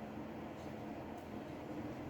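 Steady low hum with a faint hiss, like a small fan or electrical equipment running; no distinct handling sounds.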